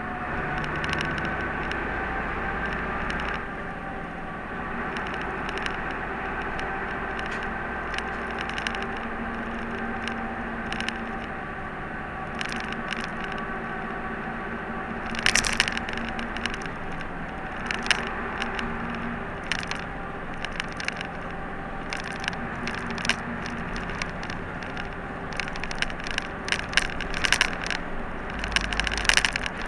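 City route bus driving, heard from inside the cabin: the engine runs steadily under tyre and road noise, with sharp clicks and rattles from the bus interior that come more often from about halfway through.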